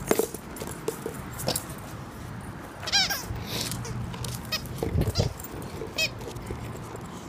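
Dog's squeaky toy squeezed in a quick run of short, high squeaks about three seconds in, with scattered clicks and a dull knock around five seconds.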